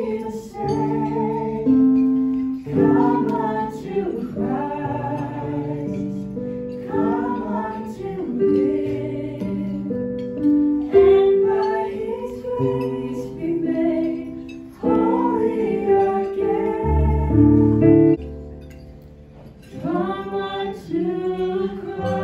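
Mixed female and male voices singing a Christian worship song in harmony through handheld microphones, over held instrumental accompaniment. The voices stop briefly about four-fifths of the way through, then come back in.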